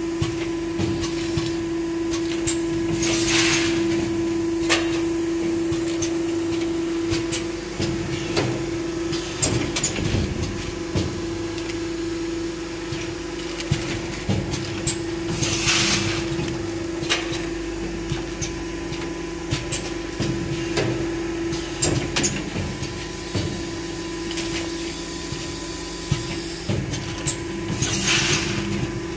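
Single-station premade-pouch packing machine running: a steady hum with frequent pneumatic clicks and knocks of its grippers and jaws, and a short hiss three times, about twelve seconds apart, once per bagging cycle.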